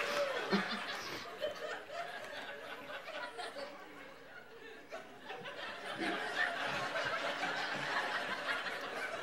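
A man laughing, his laugh falling in pitch and trailing off within the first second, followed by quieter laughter and chuckles.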